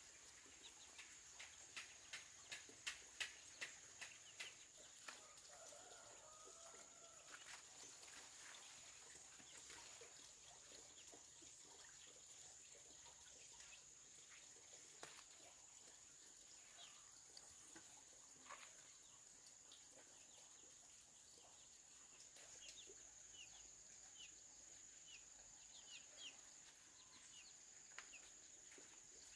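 Faint farmyard ambience: a steady high-pitched tone throughout, a run of sharp knocks about two or three a second in the first few seconds, and faint chirps of chickens near the end.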